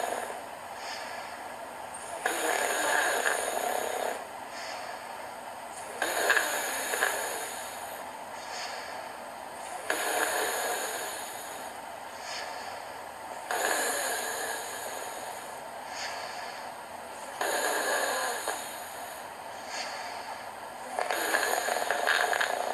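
A man snoring loudly, a rasping snore about every four seconds, six in all, each lasting a second or two, with quieter breaths in between.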